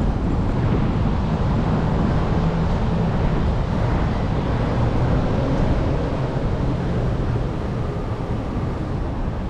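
Steady street noise: a low rumble of traffic mixed with wind buffeting the microphone.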